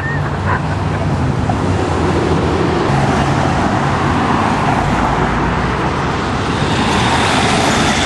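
Steady road traffic: cars running and passing on a busy street, a continuous rush of tyres and engines.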